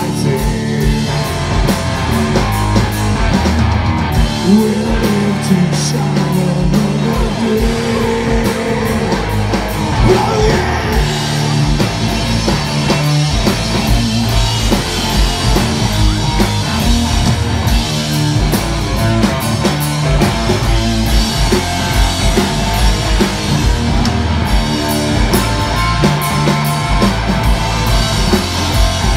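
Heavy metal band playing live: loud distorted electric guitar and bass over a drum kit, with a singer's voice at times.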